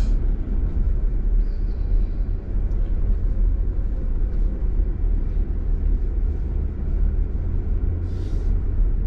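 Jeep Wrangler engine running with a steady low rumble, with a short hiss about eight seconds in.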